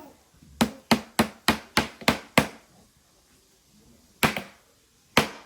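A small hammer striking a block of ice, a quick run of seven sharp taps, about three a second, then two more single blows after a pause. The ice is too hard to break.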